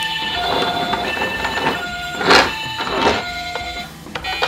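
Toy ambulance's roof sound buttons being pressed, playing electronic beeping tunes in stepped tones with short whooshing sound effects, the loudest about two seconds in.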